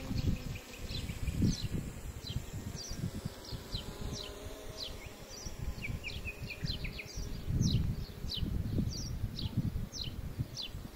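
Birds chirping: many short, quickly falling calls in a steady scatter, over a low, uneven rumble.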